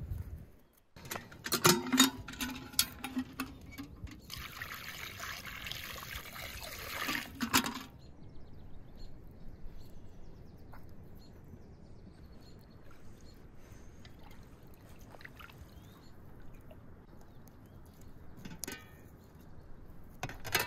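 Metal kitchenware clanking and ringing a few times, then water pouring for about three and a half seconds, ending in another clank. After that, quiet outdoor ambience with one more light knock near the end.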